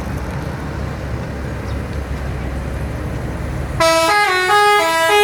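Bus engine running with a low rumble, then about four seconds in a telolet horn, a multi-tone bus air horn, sounds loudly, stepping through several notes in a short tune.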